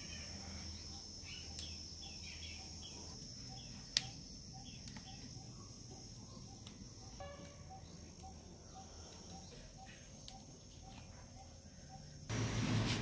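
Quiet outdoor background of insects: a steady high cricket-like whine, with a soft low note repeated about three times a second through most of it. A sharp click about four seconds in, and a few fainter ones.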